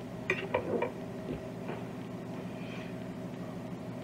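A steady low hum with several steady tones runs throughout, with three light clicks or taps in the first second and two fainter ones shortly after.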